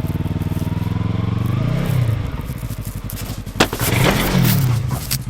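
Yamaha R3's parallel-twin engine idling, blipped up in revs twice, about two seconds in and again about four seconds in, with a sharp click shortly before the second blip.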